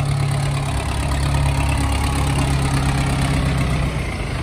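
Mahindra Arjun 605 diesel tractor engine running at low, steady revs as the tractor drives slowly past close by.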